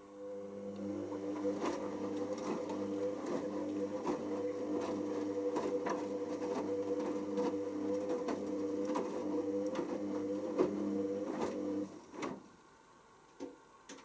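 Hoover Optima OPH714D washing machine's drum motor turning the drum in a main-wash tumble. A steady motor hum runs with the wet load and water knocking and splashing inside, and it stops about twelve seconds in. A couple of clicks follow near the end.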